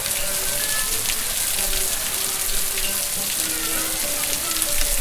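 Waterfall: a steady, even rush of falling water, with brief bubbling notes scattered through it.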